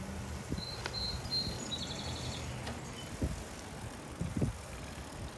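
Bicycle rolling on a paved path: a steady low rumble of tyres on asphalt, with two short knocks about three and four and a half seconds in. A brief high-pitched chirping comes between about one and two seconds in.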